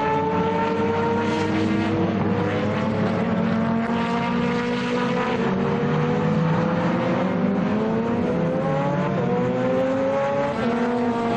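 Several race car engines at full throttle, their pitch climbing as they accelerate, with a sudden drop in pitch at a gear change near the end.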